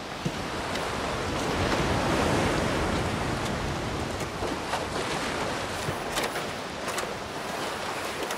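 Surf washing on a beach, swelling to a peak about two seconds in and then easing off, with a few faint light clicks near the end.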